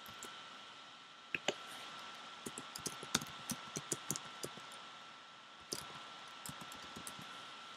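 Irregular clicks and taps of a computer keyboard and mouse, in two runs: a longer one starting about a second and a half in, and a shorter one near six seconds.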